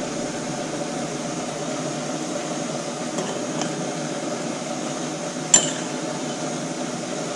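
Kitchen handling sounds over a steady hiss: a few faint ticks, then one sharp clink of a kitchen item about five and a half seconds in.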